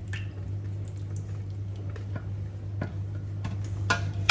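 Scattered light taps and clinks of kitchen utensils against cookware while plums are handled for syrup, the sharpest tap near the end, over a steady low hum.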